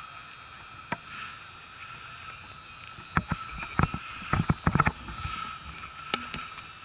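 Close knocks and rustles of handling noise on a catcher-worn camera: a cluster of short knocks from about three to five seconds in and a sharp click a little after six seconds. A steady faint high-pitched hum runs underneath.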